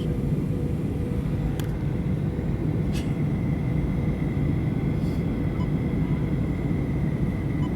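Steady airliner cabin noise: the low rumble of the jet engines and airflow heard from inside the passenger cabin, with a faint steady whine. Two light clicks a second and a half apart.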